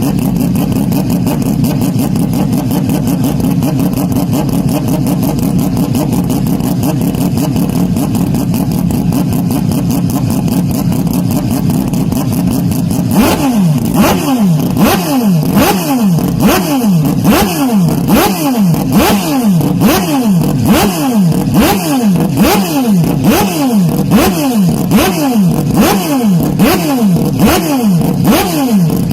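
Porsche 911 RSR racing engine, heavily bass-boosted and distorted. It runs as a steady drone for about the first half, then revs up and drops back over and over, roughly once a second.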